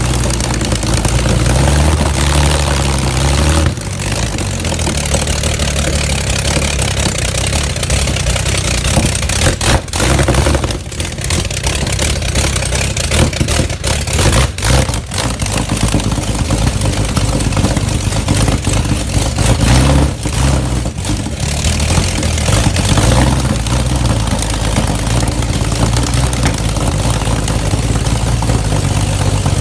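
The 1927 Avions Voisin land-speed-record car's big multi-cylinder engine running very loud through short open exhaust stubs. It runs at a fast idle, and its pitch rises and falls several times as the revs change, with a few brief dips.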